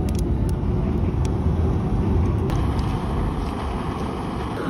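Small canister gas camping stove burning under a pot, a steady roar, with a few faint clicks in the first second and a half.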